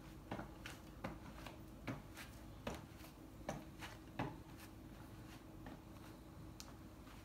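Light footsteps in Nike Canyon sandals on a hard floor: a run of soft, irregular taps and scuffs from the soles, thinning out after about four seconds, over a faint steady hum.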